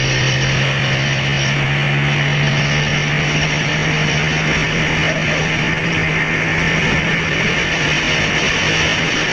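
Background guitar music playing over a loud, steady rushing noise.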